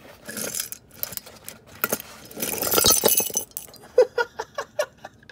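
Seized wheel hub bearing from a Dodge SRT-4 breaking apart: a rough metallic rattle, then its steel balls and a race dropping out and clinking on the pavement in a run of sharp ringing clicks near the end.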